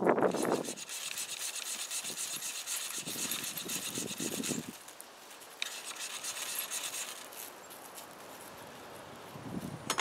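Stainless steel machete blade scraped hard along a ferrocerium rod in quick rasping strokes to throw sparks onto a feather stick: one long spell of scraping, a short pause, then a second shorter spell.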